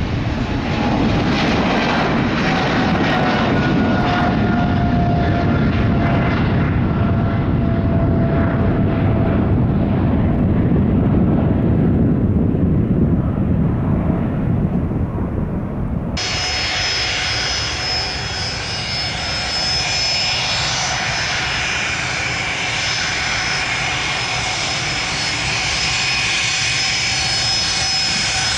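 Jet airliner engines: a heavy rumble with a whine that slowly falls in pitch as the aircraft passes and moves away. About 16 seconds in, the sound cuts suddenly to another jet's engines, with less rumble and a steady high-pitched turbine whine.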